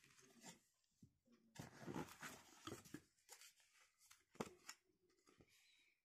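Faint rustling and crinkling of paper leaflets and plastic wrapping being handled, with a few soft clicks and a sharper tap a little past four seconds in.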